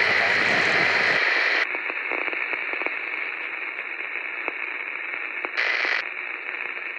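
Static-noise sound effect for a glitching logo: a loud burst of hiss that drops after about a second and a half to a thinner crackling static with scattered clicks, then a short louder burst of hiss near the end.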